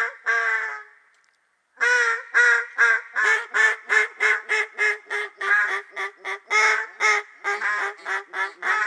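Mallard duck call blown in a long, steady run of quacks, about two or three a second, with a short pause about a second in; a hunter calling to ducks overhead.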